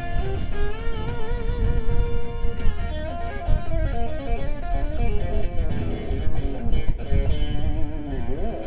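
Live blues played by a guitar-led band: the guitar carries a lead line of bent, wavering notes over the band's low end, with a bend sliding down and back up near the end.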